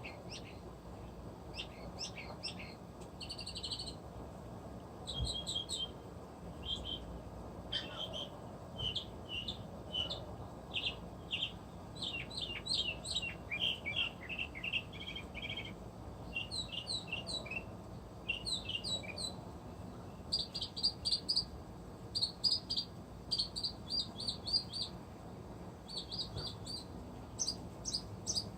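Northern mockingbird singing a long, varied song: a run of short, different phrases, each repeated several times in quick succession before switching to the next.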